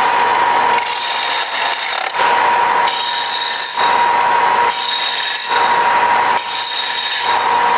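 Bench belt sander running with a steady whine while a metal intercooler tube is pressed to the belt in four passes of about a second each. The rasp of the metal on the abrasive swells with each pass and drops back between them.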